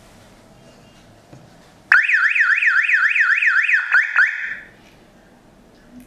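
Wireless car alarm siren with a built-in vibration sensor going off after being moved while armed: a loud, fast up-and-down warbling tone, about five sweeps a second, that starts suddenly about two seconds in and stops after about two and a half seconds.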